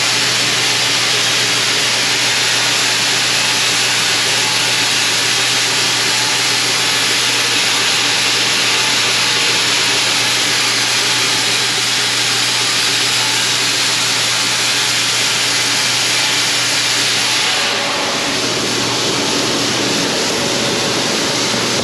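Grain-handling equipment running steadily as a load of corn is unloaded, a constant machine hum under a heavy hiss of moving grain. The hiss eases a little near the end.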